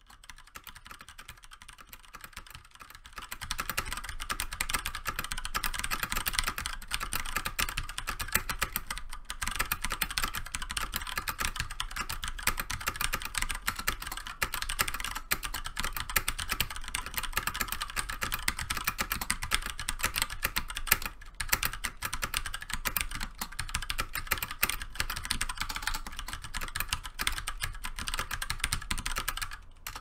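Fast continuous typing on a DISCO tenkeyless mechanical keyboard with KBT Brown switches: a dense run of key presses, lighter for the first few seconds, then steady.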